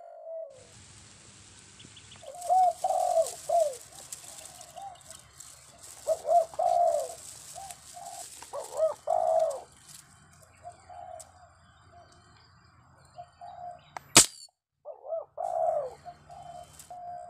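Doves cooing in repeated phrases of low, arching coos, with one sharp crack about fourteen seconds in.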